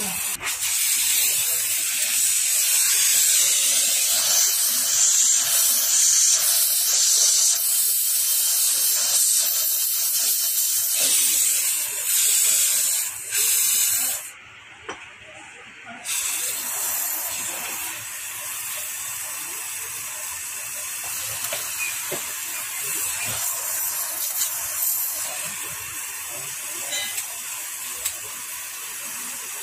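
A steady, high-pitched hiss. It drops away for about two seconds midway through and comes back somewhat quieter.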